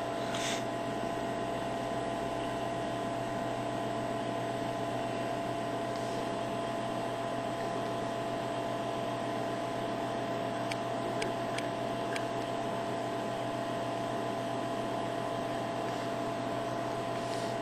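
Steady hum and hiss with a few fixed tones. About eleven seconds in, four faint clicks come as keys are typed on a Windows Mobile phone.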